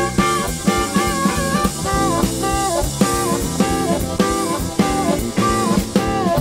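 Live blues band: an amplified harmonica playing short repeated phrases with notes bent downward, over a drum kit, electric bass and electric guitar.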